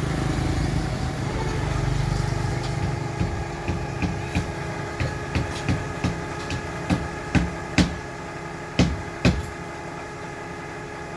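An engine idling steadily, with a run of sharp knocks or metal clanks from about three seconds in to about nine seconds, the last few the loudest.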